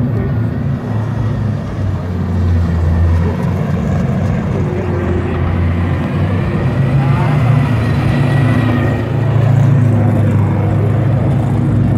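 Drift car's engine running hard under sustained throttle as the car slides around the pad.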